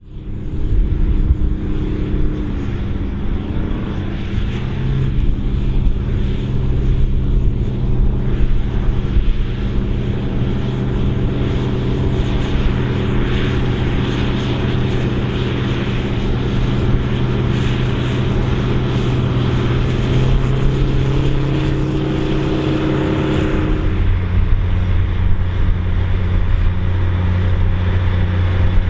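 Big farm tractor engines running steadily under load while pulling plows. About 24 seconds in, the sound switches abruptly to a different engine with a lower note.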